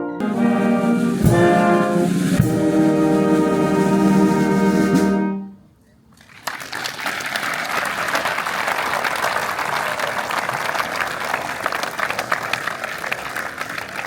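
A brass band plays the closing bars of a national anthem, with two percussion strikes, and holds a final chord that ends about five seconds in. After a short pause an audience breaks into steady applause.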